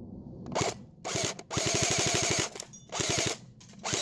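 Action Sport Games Discovery Line Steyr AUG A2 airsoft electric gun (AEG), with its V3 metal gearbox, firing 0.20 g BBs on full auto in several short bursts. Each burst is a rapid mechanical rattle of about fifteen shots a second; the longest, about halfway through, lasts nearly a second.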